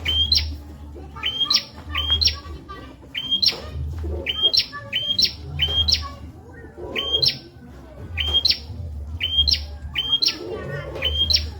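Prenjak (prinia) singing: a fast string of short, sharp chirps, each sweeping quickly upward in pitch, repeated about twice a second with brief pauses, over a low rumble that comes and goes.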